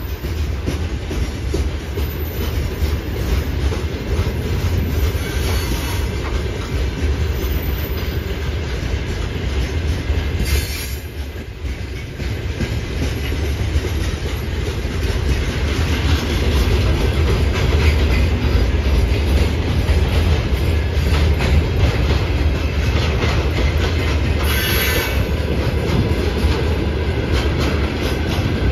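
Freight train wagons rolling past close by: a steady rumble of steel wheels on the rails, louder in the second half, with a brief lull about eleven seconds in.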